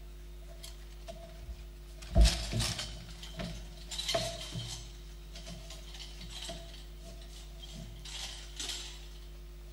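A thump about two seconds in, then scattered knocks and rattling clicks, over a faint steady hum.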